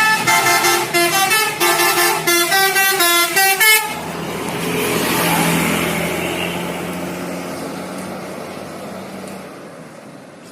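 Bus telolet multi-tone musical horn playing a quick tune of short, changing notes for about four seconds. Then the bus's engine drone swells as it passes and fades away.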